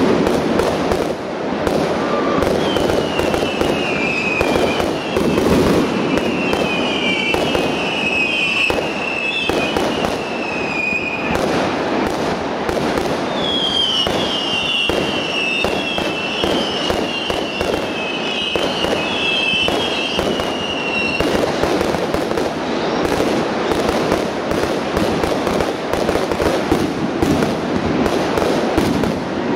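Professional aerial fireworks display: a continuous run of shell bursts and crackling bangs. A high, wavering whistle, dipping in pitch again and again, sounds through the middle.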